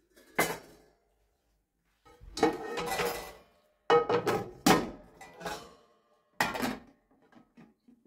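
Metal pots, pans and a glass lid clattering as they are handled and set down on a kitchen counter: a sharp knock near the start, a longer rattle and scrape around two to three seconds in, then a quick run of ringing clanks and one more knock near the end.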